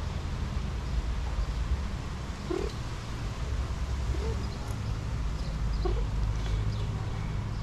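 Tuxedo cat giving about three short, quiet meows a second or two apart while being stroked, over a steady low rumble.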